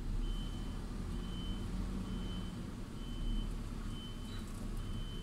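Truck's reversing alarm beeping about once a second, each beep a short steady high tone, over the low running of the truck's engine as it backs an interlink trailer combination.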